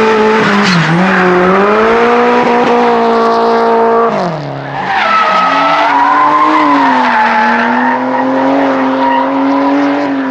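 Drift cars sliding with engines held at high, fairly steady revs over tyre squeal: first a red Subaru Impreza, with a brief dip in revs about a second in. About four seconds in the sound cuts to a BMW 3 Series drifting, its engine likewise held high with tyres squealing.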